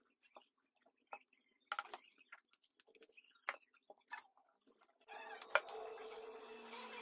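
Faint, scattered taps and knocks of a long wooden rolling pin (oklava) and hands on a wooden board as thin dough sheets are rolled out and the pin is set down. About five seconds in, a steadier background sound with a held tone comes in.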